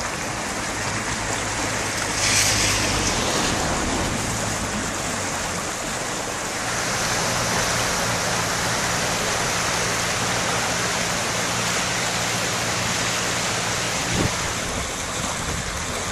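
Swollen stream in flood, fast brown floodwater rushing through a narrow channel as a steady, even rush of water. A brief louder hiss comes about two and a half seconds in.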